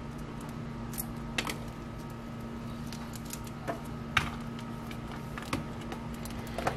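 Scattered light clicks and knocks as cable plugs are handled and connected to a small thermal label printer, about half a dozen over a few seconds. A steady low hum sits underneath.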